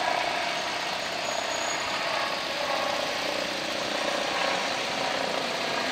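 Steady engine noise from vehicles at a road junction.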